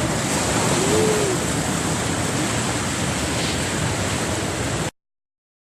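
Steady rushing of a waterfall, an even roar of falling water. It cuts off abruptly about five seconds in.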